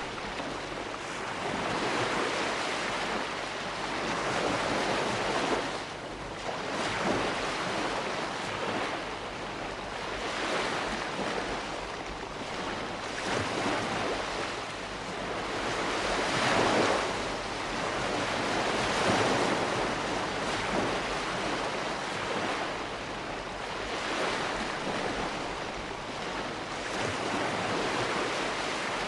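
Calm sea washing onto a shore, each gentle wave swelling and falling back every few seconds.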